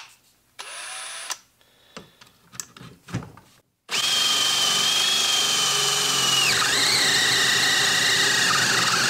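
HART brushless half-inch cordless drill boring a 1-inch spade bit into a 2x4: a brief trigger pull and a few knocks, then from about four seconds in a loud steady run with a high motor whine. About two-thirds of the way through, the whine drops to a lower pitch as the motor slows under load.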